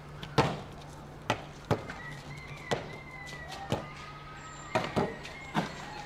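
A series of sharp, irregular knocks, about nine in six seconds, two of them close together near the end, over a faint steady hum. A thin high tone sounds through the middle.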